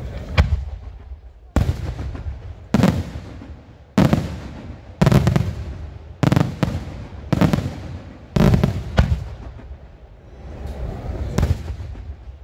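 Fireworks shells bursting in a steady run of about a dozen loud bangs, roughly one a second, each trailing off in a rumbling echo, with a short lull near the end.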